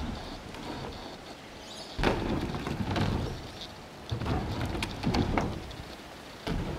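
BMX bike tyres rolling over hollow backyard ramps, with sudden heavy landings about two seconds in, again around four and five seconds in, and near the end, each followed by a stretch of rolling rumble as the rider carries speed across the ramp.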